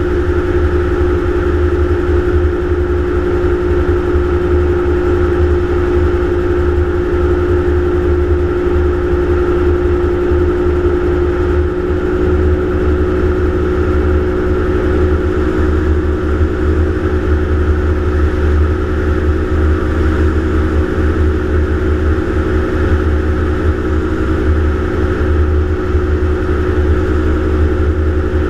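Gyroplane engine and propeller droning steadily in cruise flight, holding one pitch throughout, with a deep fluttering rumble underneath.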